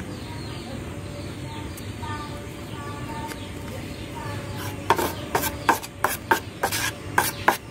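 Metal putty knife stirring and scraping a wet white cement and Fevicol mix against a steel bowl, in quick strokes of about three a second that start about five seconds in.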